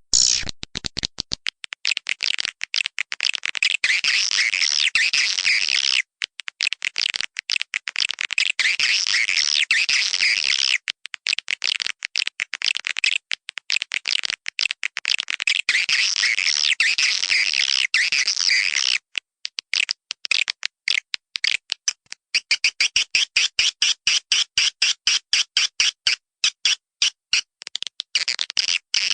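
Swiftlets twittering in a dense, high chorus of rapid chirps, with runs of fast clicks near the start and again through the last third.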